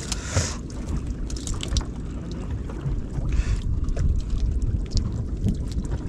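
Steady low rumble of wind and sea around an open fishing boat, with scattered small rustles and taps as a wet fishing net is handled and mackerel are pulled from its mesh. Two brief hissing swishes, one at the very start and one about three seconds in.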